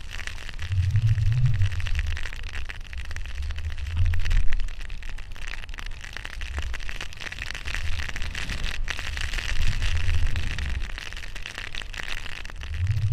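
Wind buffeting the microphone of a pole-mounted action camera in low gusts that come and go every second or two, over a steady hiss of skis running through deep powder snow.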